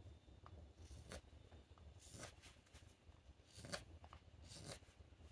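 Faint scrapes of a carving knife paring thin shavings from the outside of a wooden goblet bowl with lever cuts: four or five separate short cuts, about a second apart.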